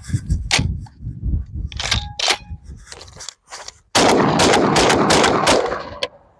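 12-gauge inertia-action semi-automatic shotgun (Ferrochi Arms KSA110) fired rapidly: several shots in quick succession about four seconds in, lasting about a second and a half with echo between them. Before that come a few scattered sharp clicks and knocks.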